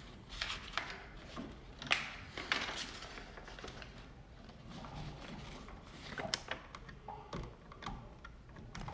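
Faint handling noise from wiring a dimmer switch: scattered small clicks as wires and the dimmer are worked into place at its brass terminal, with the rustle of a paper wiring diagram held in the same hand.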